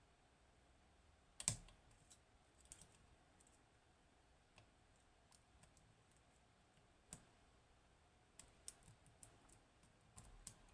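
Faint, scattered clicks and ticks of a lock pick working the pins of a Hori Trident high-pin-count lock, with a sharper click about a second and a half in and another about seven seconds in.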